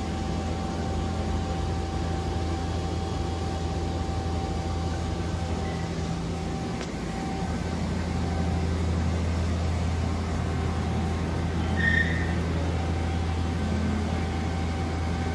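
Steady low hum of a powered-up but idle Okuma Captain L470 CNC turning center and the shop around it, with a faint steady tone over it. A short high chirp comes about twelve seconds in.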